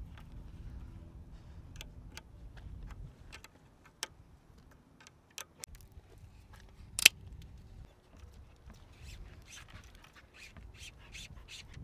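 Bicycle parts and tools being handled during assembly: scattered small clicks and taps, with one sharp, louder click about seven seconds in, over a faint low rumble.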